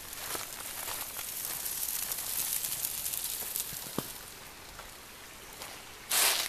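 Chicken sizzling on a mesh grill grate over a wood fire in a steel fire pit: a steady hiss with light crackling that fades after about four seconds. There is a single sharp pop about four seconds in, and a loud brief rustle near the end.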